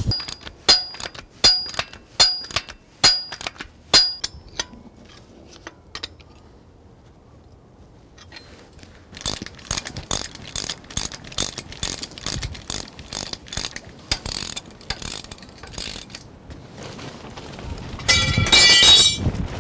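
Ratcheting wrench clicking as the bearing and adjuster bolts on a steel sawmill frame are tightened down: slow single clicks about every three-quarters of a second at first, then after a pause a faster run of clicks. Near the end comes a loud metallic clatter with ringing.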